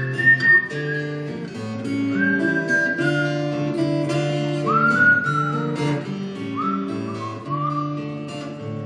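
Acoustic guitar playing chords while a whistled melody goes over it: about five long notes stepping downward, each sliding up into its pitch.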